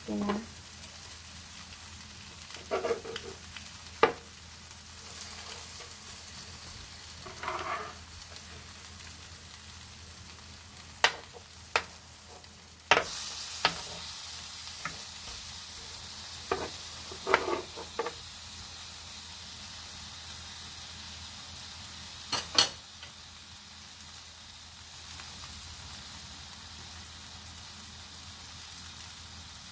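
Egg-battered pollack fillets sizzling in oil in a nonstick griddle pan, with a metal spatula and spoon clicking and scraping against the pan as the pieces are turned. The sizzle gets louder about halfway through, and the clicks come now and then, mostly in the first two-thirds.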